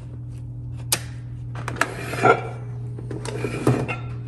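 FlyBird adjustable dumbbells being lifted out of their bases and off a rack: sharp clicks and clatter of the metal plates and handles against the cradles, loudest about two seconds in and again near the end, over a steady low hum.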